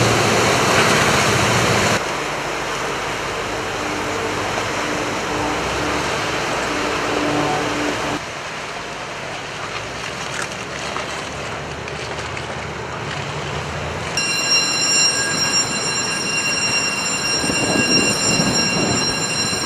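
Rushing water and wind noise from a boat under way at sea, with a low engine hum underneath. The sound changes abruptly a few times, and for the last few seconds a set of steady high tones joins in.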